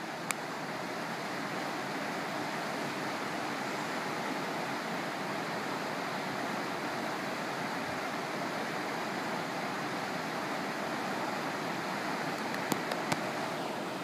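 Small waterfall and rapids rushing steadily into a rocky pool, with a couple of faint clicks near the end.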